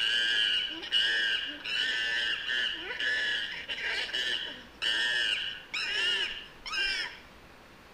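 Recorded monkey calls: a quick run of high-pitched calls, the last few arching up and then down in pitch, stopping near the end.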